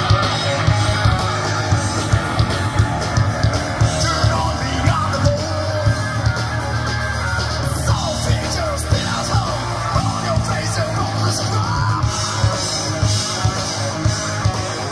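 Live rock band playing loud, with a driving drum beat, guitars and a singer.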